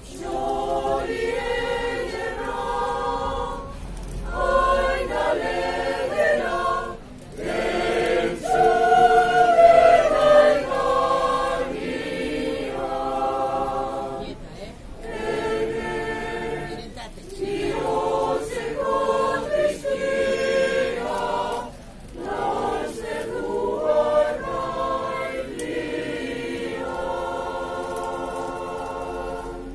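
Mixed choir of men's and women's voices singing unaccompanied in harmony, in phrases of a few seconds with short breathing breaks, closing on a long held chord near the end.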